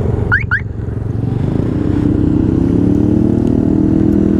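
Honda Grom's small single-cylinder motorcycle engine running at low speed. Two short rising squeaks come about half a second in, and from about a second and a half the engine settles into a steady, slightly louder note.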